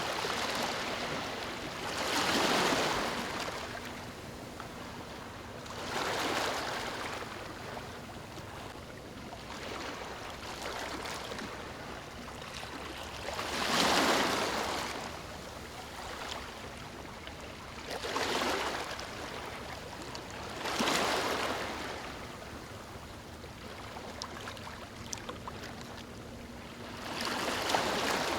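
Small waves washing in, each swell rising and falling away over about a second, about six times at uneven intervals over a steady wash of water.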